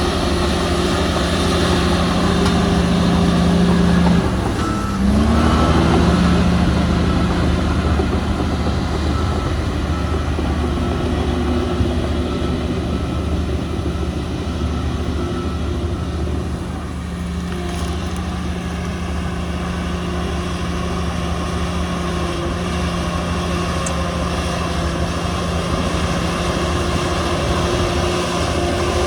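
Heavy diesel earthmoving machinery running steadily. About four to five seconds in, the engine note drops and then picks back up. A reversing alarm beeps evenly for several seconds after that.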